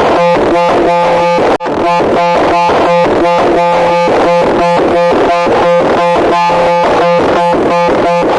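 Loud, harsh electronic buzzing tone pulsing rapidly and evenly, about four pulses a second, with a brief break about one and a half seconds in.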